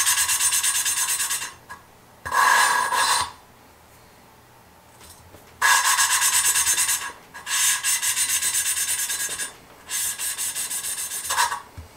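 A poppet valve being hand-lapped into its seat in a Ford Duratec aluminium cylinder head: the lapping stick is spun back and forth between the palms, so grinding compound rasps between valve face and seat. The rasping comes in five spells with short pauses between them. The seats are being lapped to clean up pitting and corrosion.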